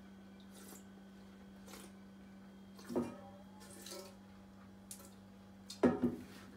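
Wine tasting: a mouthful of red wine sipped, worked in the mouth and spat into a stainless steel spit bucket. Two sharper sounds stand out, one about three seconds in and a louder one near the end.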